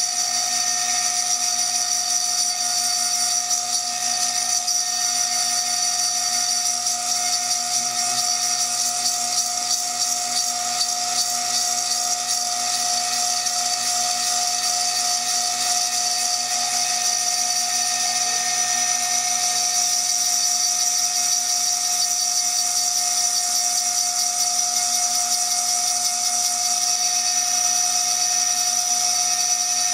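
High-speed CNC milling spindle whining steadily as a small, freshly sharpened cutter engraves the glass of a beer bottle.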